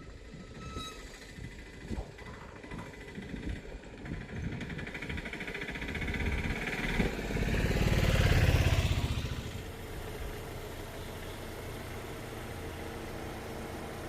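A motor vehicle passes by: its engine and tyre noise grow louder, peak about eight seconds in, then fall away with a drop in pitch, leaving a steady low engine hum.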